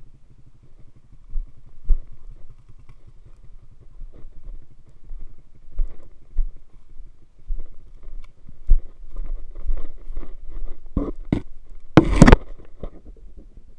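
Footsteps crunching through dry leaves and brush, with rubbing and knocks on a body-worn camera's microphone. A couple of sharp knocks come about 11 seconds in, then a single loud bang about a second later.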